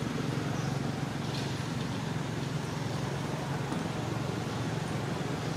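Steady low mechanical rumble with a hum, like a running engine, unchanging throughout, with a brief faint high squeak about a second and a half in.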